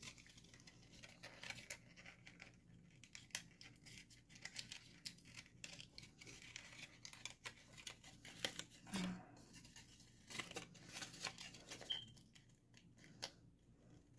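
Faint crinkling and rustling of cardstock being folded and handled, with many small crackles and clicks as paper tabs are pressed together.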